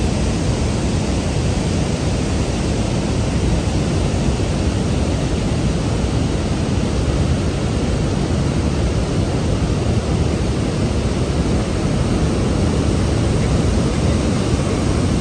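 Water pouring through a dam's open spillway, heard from above as a steady, loud, unbroken rush with a deep low rumble.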